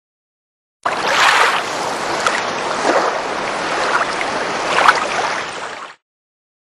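A rushing whoosh sound effect, like wind or surf. It starts abruptly about a second in, swells a few times and cuts off suddenly near the end.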